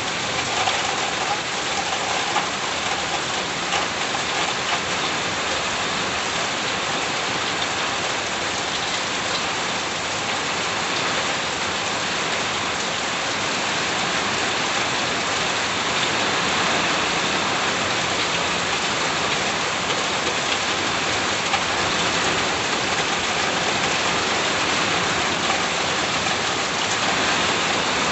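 Steady rain falling and pattering on surfaces, a dense even hiss with scattered drops.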